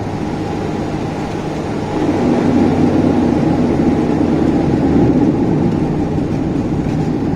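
Turboprop engines of a De Havilland Dash 8-400 running with a steady drone, growing louder about two seconds in.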